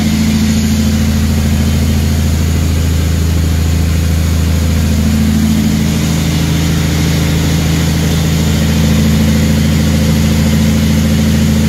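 Heavy truck's diesel engine running steadily while driving, heard from inside the cab as a constant low drone.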